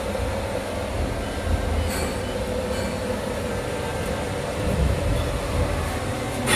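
Steady industrial machinery noise: a constant drone with an uneven low rumble and a faint steady hum. A light click comes about two seconds in and a sharper knock at the very end.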